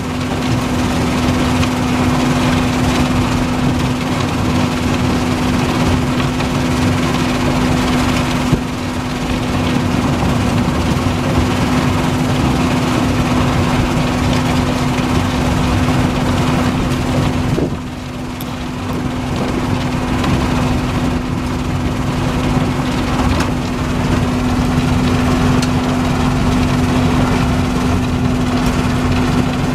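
RUBBLE MASTER RM 100GO! mobile impact crusher with its screen running, crushing asphalt: a steady machine hum under a continuous clatter of broken material. The clatter eases briefly twice, about a third and about two thirds of the way through.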